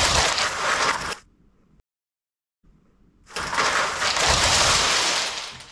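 Lego bricks crashing down as a model is demolished: a loud, rushing clatter that dies away about a second in, then dead silence, then the same crash starting again and building up, repeating as a loop.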